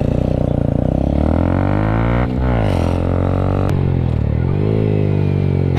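A vehicle engine pulling under acceleration: its pitch climbs steadily, breaks off at a gear change about two seconds in, then falls and climbs again.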